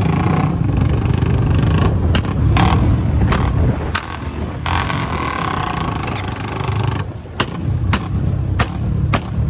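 Motorcycle ride heard on a phone microphone: a steady low rumble of engine and wind, with a series of sharp crackles, more of them near the end.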